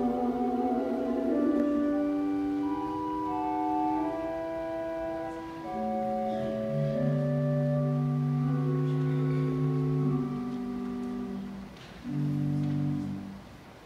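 The duet's last sung note fades in the first second or two, then a keyboard accompaniment plays an instrumental ending alone: steady held notes and chords that step downward, with a short final chord near the end.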